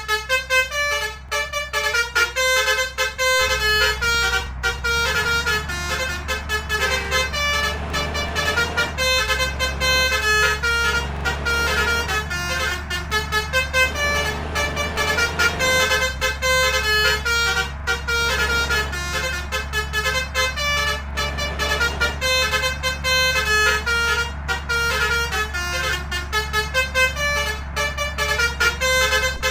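Basuri 'telolet' multi-tone air horn playing a quick melody of changing notes, over a steady engine hum that gets louder about three seconds in.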